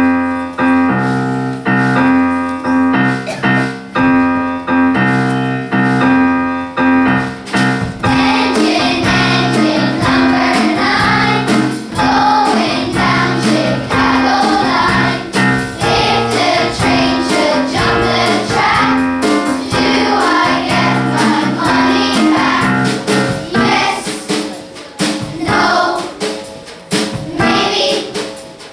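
Children's choir singing with instrumental accompaniment, which opens with about eight seconds of held instrumental chords before the voices come in.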